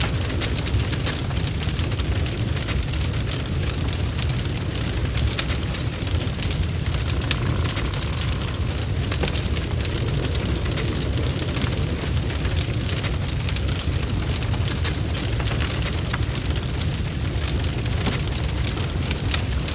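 Wood fire crackling steadily: many sharp pops and snaps scattered over a constant low rumble of burning.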